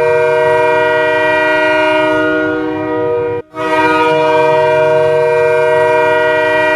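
Ice hockey goal horn, a multi-tone air horn sounding a steady chord of several notes in two long blasts, each about three and a half seconds, with a brief break between them.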